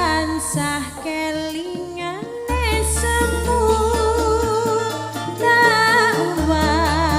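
Campursari music: a sung melody with wavering, ornamented notes over sustained bass notes and an even, ticking beat.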